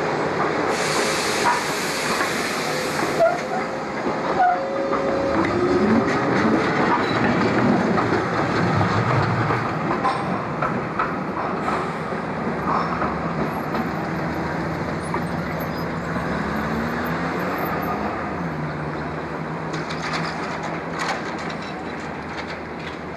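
Boeing-Vertol light rail vehicle running on street track, with a motor whine that glides up and down in pitch several times and steady wheel-on-rail noise. A hissing burst lasts about two seconds near the start.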